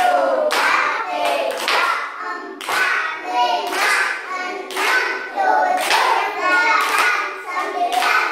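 A group of young children and a woman clapping their hands in rhythm while chanting a clapping chant together, with sharp claps about every half second over the voices.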